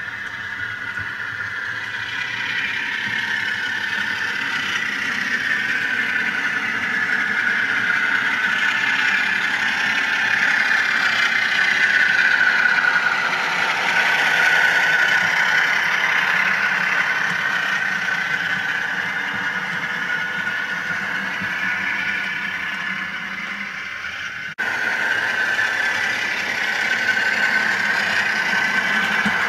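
Bachmann Class 47 model diesel locomotive and its coach running along the layout track: a steady mechanical running sound with a mid-pitched whine that bends in pitch. It is loudest as the train passes close, about halfway through, and the sound changes abruptly at a cut near the end.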